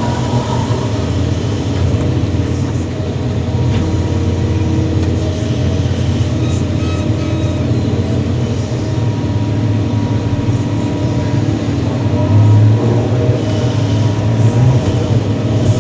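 Kobelco SK330-10 excavator's diesel engine and hydraulics running under load as it digs and loads, a steady heavy drone that swells louder briefly about twelve seconds in.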